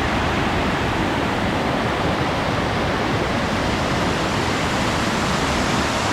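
Waterfall pouring down at close range: a loud, steady rush of falling water.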